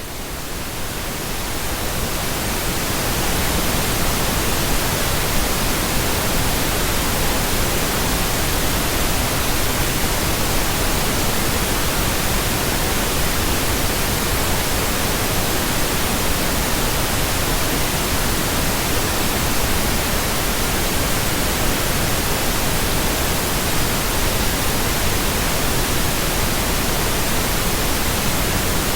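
Synthesized pink noise, a steady hiss spread evenly across the whole range, fading in over the first two or three seconds and then holding level.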